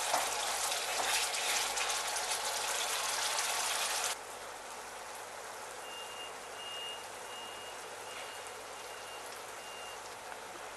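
Spiced onion-and-ginger-garlic masala sizzling in oil in a stainless steel pan while a wooden spatula stirs and scrapes it. About four seconds in the sound drops suddenly to a quieter, steady sizzle of the masala bubbling on its own. A faint, broken high beeping runs for a few seconds in the middle.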